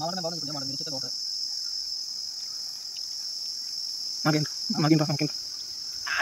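Steady high-pitched drone of insects shrilling in the woods, with short stretches of a man's voice at the start and again about four seconds in, the loudest moments.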